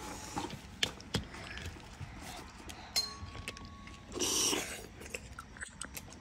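Eating ghungi (river snails): chewing with scattered small clicks and knocks, and a short hiss about four seconds in.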